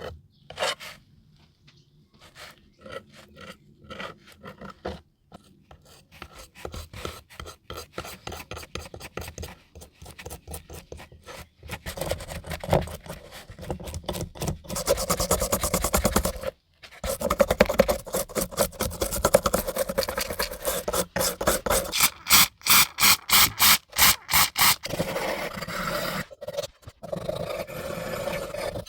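Hand abrasive work on a small diecast metal car body: rapid back-and-forth rasping strokes, a file or abrasive scraping the metal. The strokes are light and scattered at first, then become quicker and louder about halfway through, with a brief pause.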